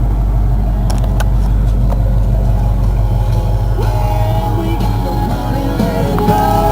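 Ford 302 V8 engine in a 1991 F-150 running steadily at low revs. About four seconds in, rock music with guitar and singing starts over it.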